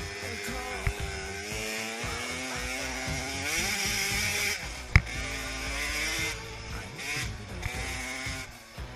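A 50cc youth dirt bike's small two-stroke engine revving up and down under throttle, its pitch rising and falling as the rider works the track. One sharp knock about five seconds in.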